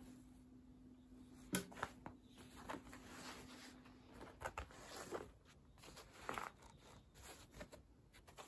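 Faint rustling of cloth and soft taps on tatami as a cloth is laid over a plush toy, with a sharp click early on. A faint steady hum stops a little past halfway.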